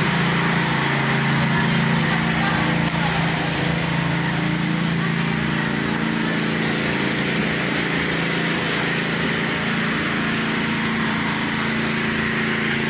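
Small petrol engine of a site concrete mixer running steadily at a constant speed during a concrete pour.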